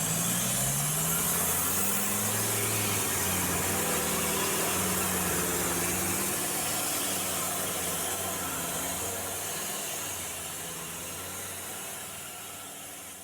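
Diesel engine of an off-road 4x4 running under load as it climbs through mud, its pitch rising and falling with the throttle, then gradually fading near the end.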